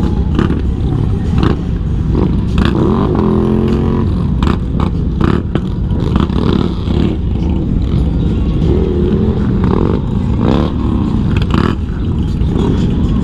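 Motorcycles running under way in a large group ride, a steady low engine and road noise, with engine revs rising and falling a few times, most clearly about three seconds in.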